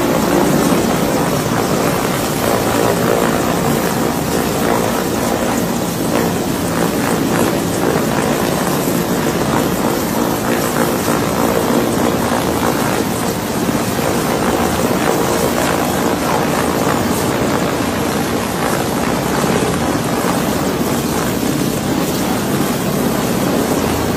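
Large military transport helicopter hovering low overhead, its rotor and turbine noise loud and steady.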